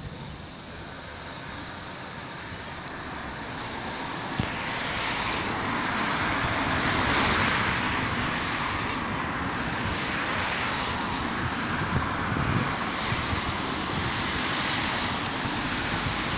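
Steady rushing vehicle noise that builds over the first several seconds and then holds.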